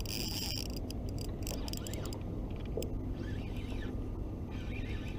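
Steady low rumble of wind and water around a small boat, with a few sharp clicks and taps in the first second or so from hands and fishing gear moving close to the microphone.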